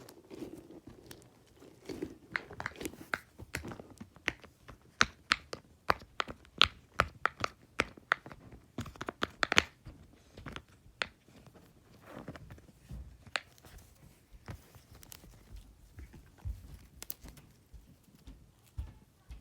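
Fidget toys being handled: a string of sharp clicks and snaps with some crinkling, coming thick and fast between about four and ten seconds in, then thinning out.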